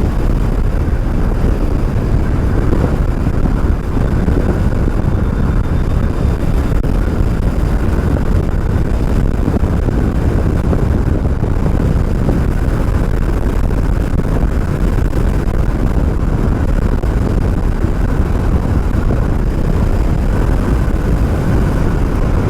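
Steady wind rush buffeting a helmet-mounted microphone on a moving electric bike, a loud, even low rumble with no breaks, riding into a headwind.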